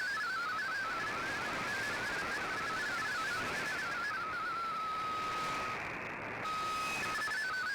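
MFSK digital data signal received on a shortwave receiver: a warbling run of rapidly stepping tones over band hiss. Just past the middle the stepping gives way to a steady single tone, then a brief drop and a short tone, before the stepping resumes near the end.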